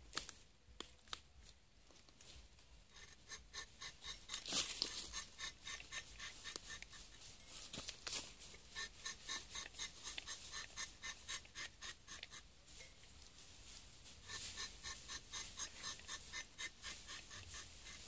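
A hooked rubber-tapping knife shaving the bark of a rubber tree in quick, short scraping strokes, several a second. This is the first cut of a new tapping panel. A long run of strokes is followed by a pause and then a second run near the end.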